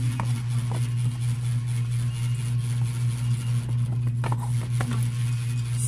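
Steady low hum of a running electric fan, with a few light knocks and clicks as a small board drawer organizer is handled.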